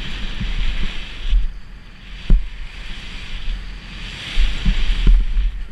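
Wind rushing over the camera microphone as a Kona Process 167 full-suspension mountain bike rides fast down a rough dirt trail, with low rumble and knocks and rattles from the bike hitting bumps; the sharpest knocks come about two seconds in and again near the end.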